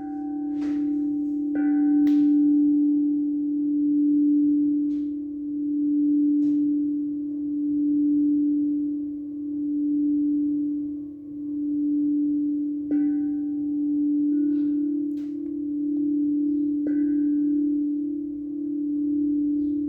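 Singing bowl held in a low, steady ring that swells and fades about every two seconds. A few higher chime strikes ring over it near the start and in the second half.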